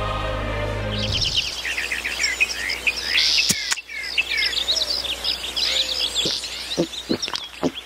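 Music ends in the first second, then many birds chirp and sing. About three and a half seconds in, a sharp click and a short hiss come from an aluminium soda can's pull-tab being opened. A few more light clicks follow near the end.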